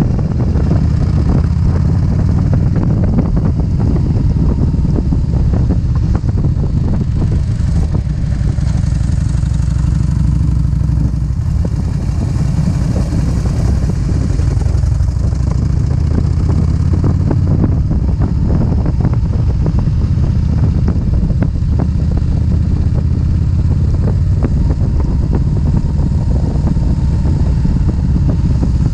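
Motorcycle engine running steadily while riding at road speed, with no clear revving or shifting.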